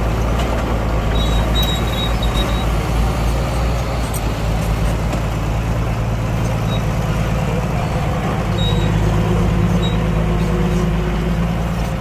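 Diesel engines of heavy earthmoving machinery running steadily under work, with a low hum that grows a little louder about eight to ten seconds in. Short faint high squeaks come about a second or two in.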